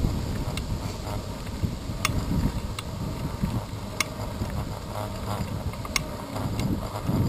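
Wind buffeting the microphone of a handlebar-mounted camera on a moving bicycle, with road rumble from the ride. Sharp clicks come through at even spacing, about every two seconds. The rumble eases in the middle and builds again near the end.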